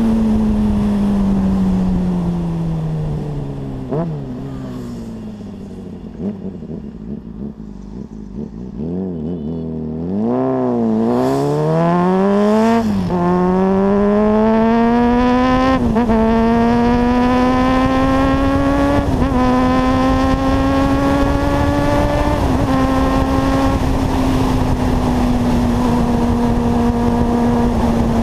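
Honda CBR600RR's inline-four engine heard from on the bike. It drops in pitch as the bike slows in the first few seconds, then runs low and quieter. From about ten seconds in it accelerates hard, the pitch climbing through several quick gear changes, and it settles to a steady cruise for the last few seconds.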